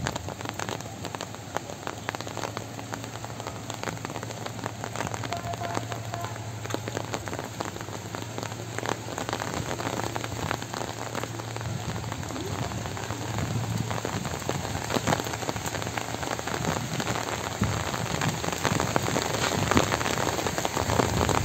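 Steady rain with a dense patter of drops, growing a little louder toward the end.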